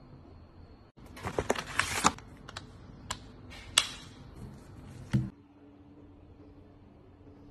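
Clicks and taps of a smartphone being handled and pressed into a hard protective case, the sharpest snaps about two seconds in, near four seconds and just after five seconds. After that comes a low steady hum.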